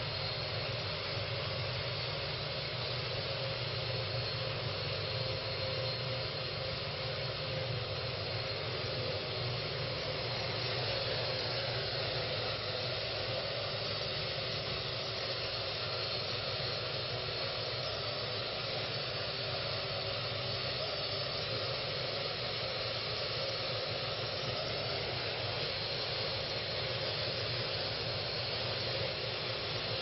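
Parrot AR.Drone quadcopter in flight, its four propellers giving a steady whirring hum with hiss.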